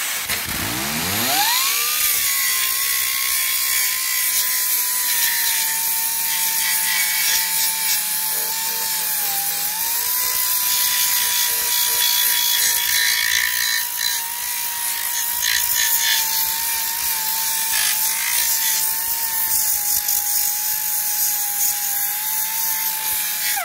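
Facom finger sander (narrow belt file sander) with a 40-grit belt spinning up with a rising whine, then running steadily as it grinds rust off a rotted steel chassis panel, a harsh grinding hiss under the whine. Its pitch sags briefly about nine seconds in as it bites, and it stops at the very end.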